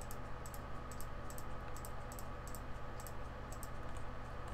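Computer mouse clicking repeatedly, a few clicks a second and often in quick pairs, while vertices are being selected. A steady low electrical hum runs underneath.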